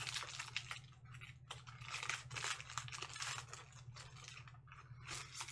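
Foil wrapper of a Panini Prizm basketball card pack being torn open and crinkled by hand, in several irregular bursts.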